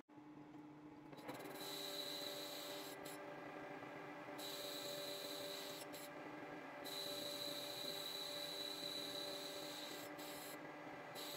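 Metal lathe running, with a cutting tool turning the V-grooves of a belt pulley: a steady machine hum with a high whine that cuts out and returns several times.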